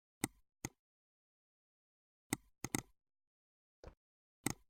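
Computer mouse clicking, seven short sharp clicks at uneven intervals, two of them in quick succession near the middle. Between the clicks the track is dead silent.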